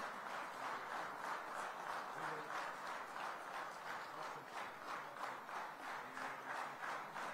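Crowd applauding steadily, a dense patter of many hands clapping, with a few faint voices in it.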